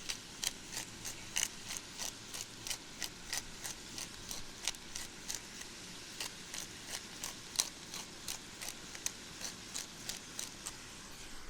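Hand pepper grinder being twisted over the pot, its grinding mechanism clicking steadily at about three clicks a second.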